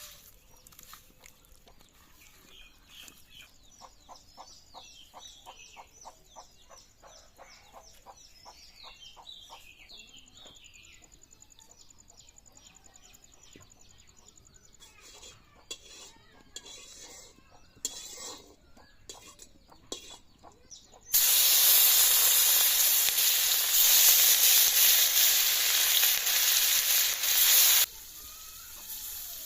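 Hot cooking oil sizzling loudly as food fries in a pan. The sizzle starts suddenly about two-thirds of the way in and cuts off abruptly a few seconds before the end. Before it there are faint bird calls and a few light clicks.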